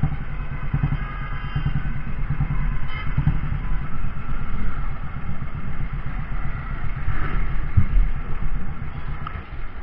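Motorcycle being ridden on the road, its engine running with a steady, rapid low pulsing under constant road noise.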